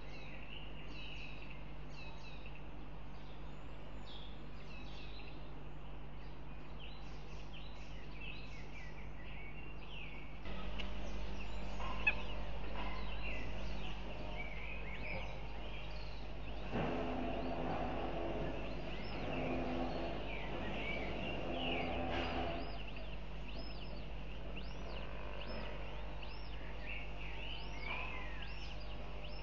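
Birds chirping, with many short high chirps and twitters over a steady low hum of the outdoor nest-camera microphone. About halfway through, a lower-pitched bird call comes in three stretches over several seconds.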